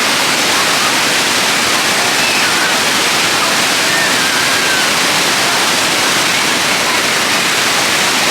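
Waterfall rushing: a steady, loud, even roar of falling water.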